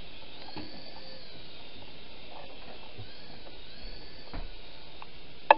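Whirly Ball flying toy's tiny propeller motors whirring, the whine rising and falling in pitch as it hovers and moves. A single sharp knock near the end.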